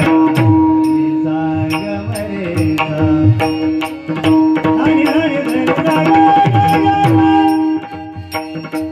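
Instrumental passage of a Marathi devotional song: tabla strokes in a steady rhythm under a held drone note and a wandering melody line, with no singing.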